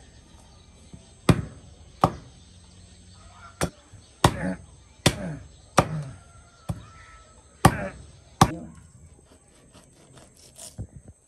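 A heavy knife chopping through a pig's trotter on a wooden stump: about nine sharp chopping blows, roughly one a second, which stop near the end.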